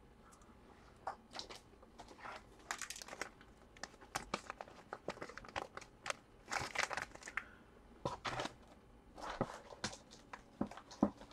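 Faint, irregular crinkling and rustling of packaging being handled.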